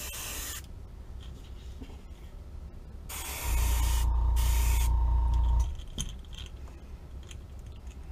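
Airbrush spraying metallic purple paint onto a lure: a short hiss of air at the start, then a longer spray of about two seconds from about three seconds in, with a brief break. Under the longer spray runs a loud low hum with a steady whine, which stops with it.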